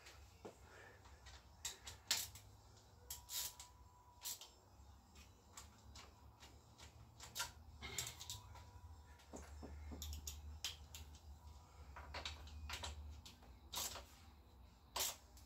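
Faint, irregular clicks and light metal taps of hand tools on the bolts of a Honda Vision scooter's exhaust as it is fitted and tightened up, with a faint low hum underneath.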